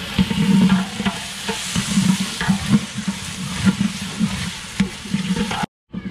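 A long metal stirrer scraping around inside a large metal cooking pot, about two strokes a second, over the steady sizzle of food frying in the pot. The sound cuts out briefly near the end.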